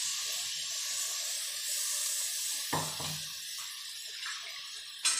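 Onion-tomato masala sizzling steadily in oil in a kadhai as a ground coconut-onion paste is tipped in. A single knock comes about two and a half seconds in, and a sharp click near the end.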